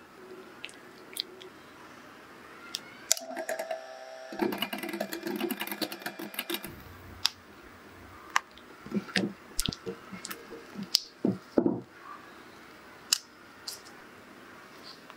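Kitchen utensils clicking, tapping and scraping against bowls and plastic containers as a matcha yogurt cream is mixed and spooned out. A steady buzzing hum runs for a few seconds in the first half.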